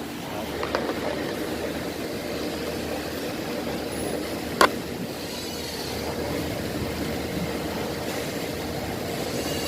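A single sharp metallic clink, as of a metal part being handled, about four and a half seconds in, over a steady mechanical hum.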